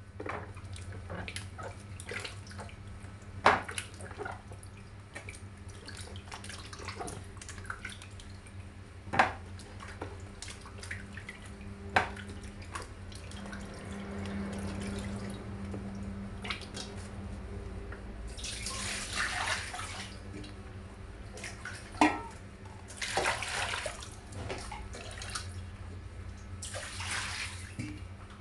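Water sloshing and splashing in a stainless steel pot as eggplants are washed by hand, with occasional sharp knocks against the pot. Longer bursts of splashing come in the second half.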